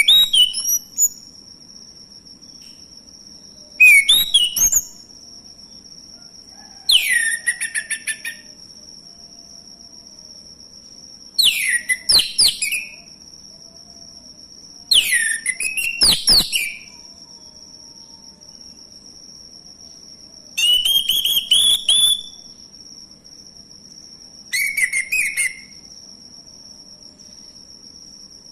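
Male orange-headed thrush singing: seven short, varied phrases of clear whistles and chirps, each about a second long, with gaps of two to four seconds between them. A thin steady high-pitched tone runs underneath.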